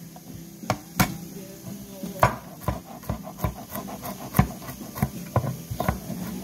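Kitchen knife chopping cilantro on a white plastic cutting board: irregular sharp knocks of the blade hitting the board, sometimes in quick runs of several strokes.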